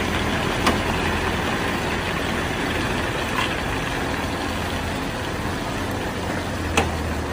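Truck engine idling steadily with a low, even hum, and a faint click about a second in and another near the end.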